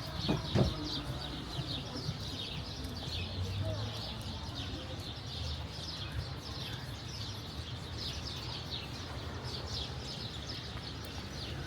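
Small birds chirping continuously, many short high chirps overlapping. A couple of sharp knocks about half a second in.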